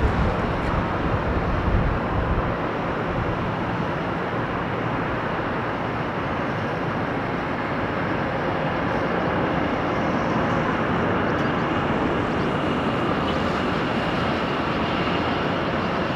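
Boeing 777-300ER's GE90 jet engines running near idle as the airliner taxis: a steady rushing noise. A heavier low rumble fades in the first couple of seconds, and a faint high whine comes in about two-thirds of the way through.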